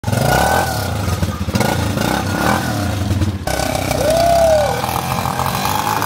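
Quad bike (ATV) engine running and revving. About four seconds in, a short tone rises and falls once.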